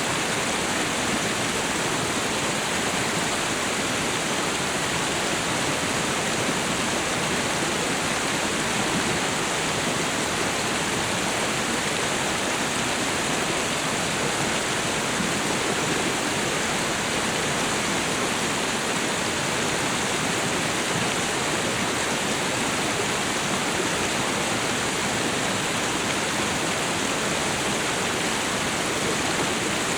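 Tropical waterfall and river: a steady, unbroken rush of falling and flowing water.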